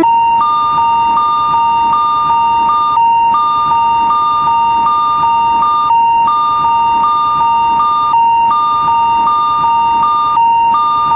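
Japanese railroad crossing warning bell, electronic 'kan-kan' ringing: two alternating tones repeating in a steady rhythm, with short breaks every few seconds.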